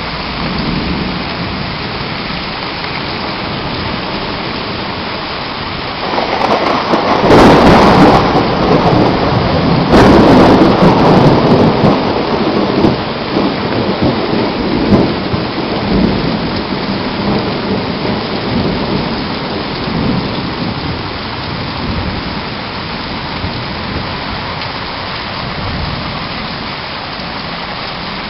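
Heavy rain pouring steadily through a thunderstorm. About six seconds in, loud thunder breaks with a second sharp crack near ten seconds, then rumbles away over the next several seconds while the rain goes on.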